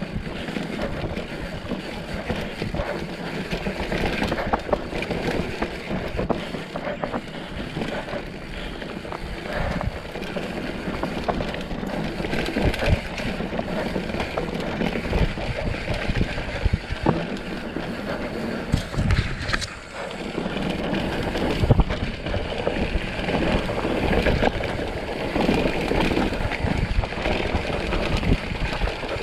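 Mountain bike riding down a rough trail: tyres rolling over dirt and stones, with frequent knocks and rattles from the bike over bumps.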